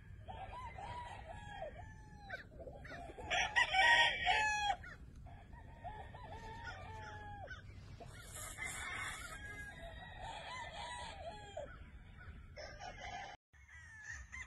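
Game roosters crowing, several at once and overlapping. One near rooster gives a loud crow about four seconds in.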